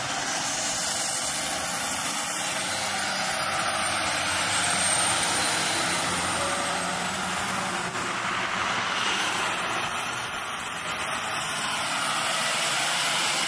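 Fire trucks' engines running as a pumper and then a rescue truck drive past close by: a steady loud engine rumble with a rushing hiss.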